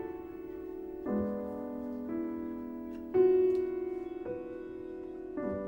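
Background piano music: slow, sustained chords, with a new chord struck about once a second.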